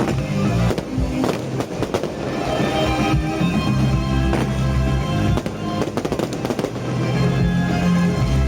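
Fireworks going off in a string of sharp bangs and crackles at irregular intervals, over loud music with a steady low bass line.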